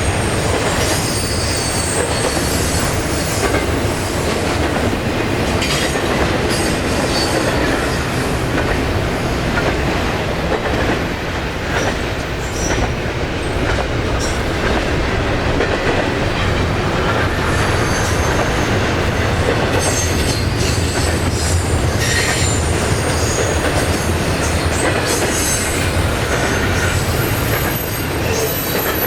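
A train rolling past at steady loudness, its wheels clacking over the rail joints. High-pitched wheel squeals come and go throughout.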